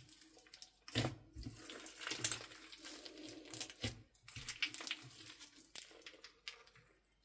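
A hand squishing and stretching a large mound of crunchy slime full of beads and foam pieces: wet squelching with a dense run of small crackles and pops, thinning out near the end.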